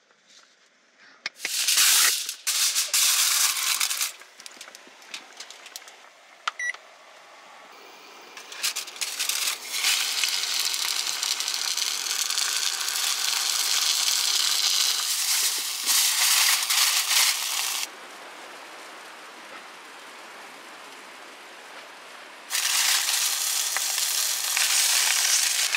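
Fish cooking on a stove, sizzling with a steady hiss in several stretches that cut in and out abruptly, with a short beep about seven seconds in.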